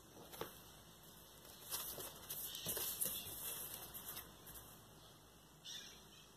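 Paper rustling as an LP's printed insert and paper inner sleeve are handled and the vinyl record is slid out of the sleeve, in irregular short rustles with a few light taps, busiest around two to three seconds in.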